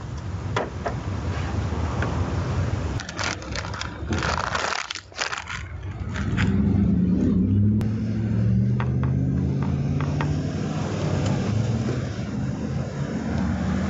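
Clicks, scrapes and rustling as things are handled and moved around in a car's engine bay and trunk. From about six seconds in, a motor vehicle's engine runs close by as a low, steady drone.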